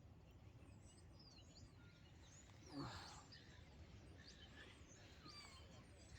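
Near silence: faint outdoor ambience with scattered, distant short bird chirps, and one brief, slightly louder sound with a falling pitch about three seconds in.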